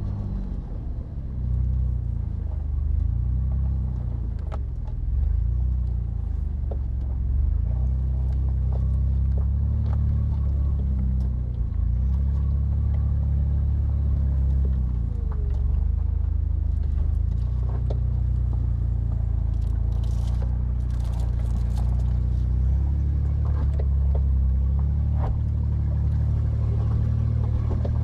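Jeep Liberty engine running at low revs, its pitch slowly rising and falling, with a few scattered knocks and clicks.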